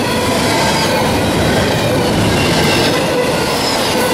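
Intermodal freight train's double-stack well cars and trailer flatcars rolling past close by. It is a steady, loud rumble of steel wheels on rail with a few faint, steady high squealing tones over it.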